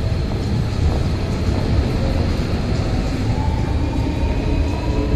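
Hankyu 8000 series electric train pulling out of the station: a steady low rumble, with a whine that rises in pitch from about three seconds in as it gathers speed.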